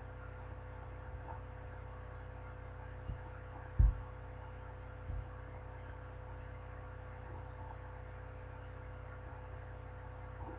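Steady low electrical hum with a thin steady tone above it, broken by three dull low thumps about three to five seconds in, the middle one loudest.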